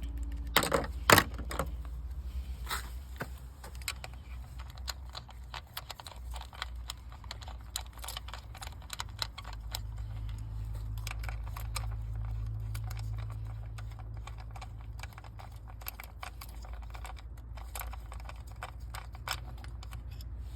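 10 mm ratchet clicking over and over as it works the ignition coil bolts loose, with small metal parts clinking. A sharp louder clack comes about a second in.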